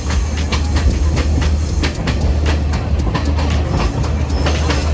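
Passenger train running along the track: a steady low rumble of the carriage with frequent irregular clacks and knocks of the wheels over the rails.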